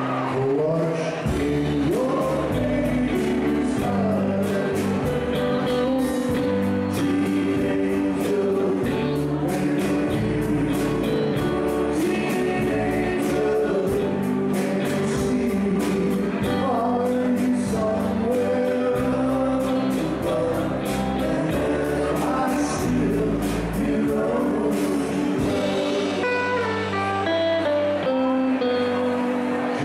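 Live band playing an R&B song with singing, guitar, a bass line and a steady drum beat.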